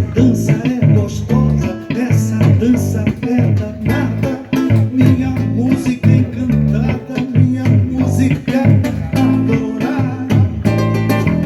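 Live band music: plucked guitar playing over a steady, moving bass guitar line.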